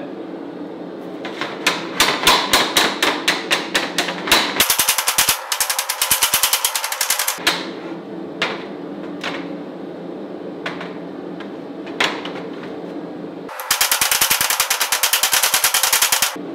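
Hand hammer striking a red-hot flat steel bar, bending it around a round steel mandrel on a steel table. The blows come in quick runs, about five a second at first and then faster, with a few single blows in the middle and another fast run near the end, over a steady low hum.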